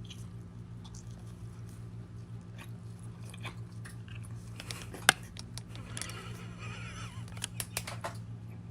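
A person chewing a large mouthful of food, with small wet mouth clicks and a sharper click about five seconds in, over a steady low hum.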